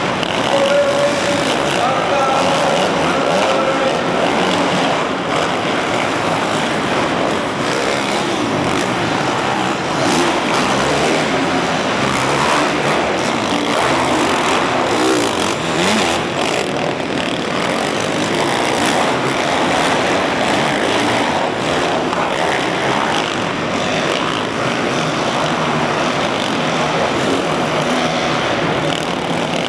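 Several supercross motorcycles racing on a dirt track inside a large arena, their engines revving up and down over and over, each rise in pitch following the next.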